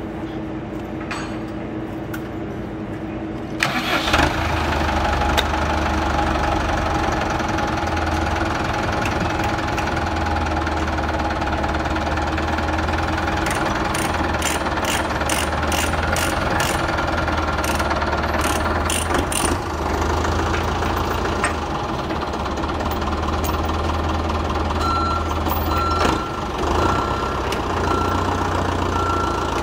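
Diesel farm tractor engine, quieter at first, then much louder from about four seconds in and running steadily from there on. A run of sharp clicks comes about halfway through.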